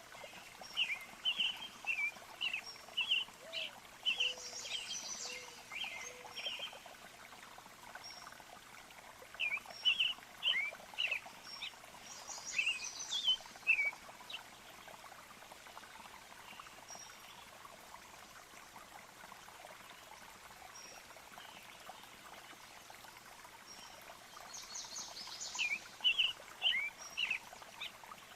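Birds chirping in quick runs of short calls, in three bouts with a long lull between, over a faint steady rush like a flowing stream.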